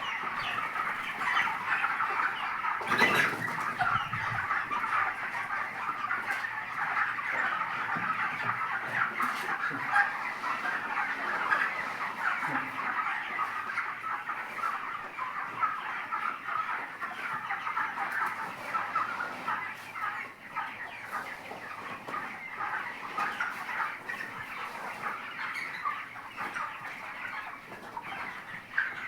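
A flock of 25-day-old broiler chickens peeping and clucking together in a steady chorus, with a single knock about three seconds in.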